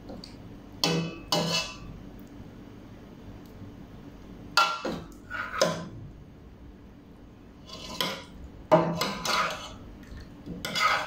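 Metal ladle clinking and scraping against a stainless steel pot of stew, in short bunches: twice in the first couple of seconds, again around five seconds in, several times between eight and nine and a half seconds, and once more at the end.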